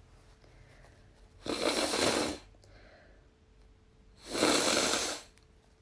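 A woman blowing her nose twice, each a noisy blow of about a second with no voice in it.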